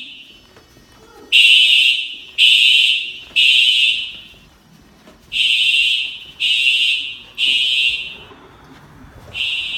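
Simplex TrueAlert 4903 fire alarm horn sounding in alarm during a fire alarm system test, in the temporal-three evacuation pattern: three short high-pitched blasts about a second apart, a pause, three more, and the next set beginning near the end.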